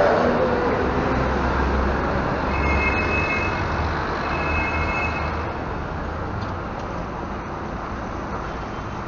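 Intercity coach's diesel engine rumbling low as the coach drives past and away, fading out. Two short high electronic beeps sound a few seconds in, about a second and a half apart.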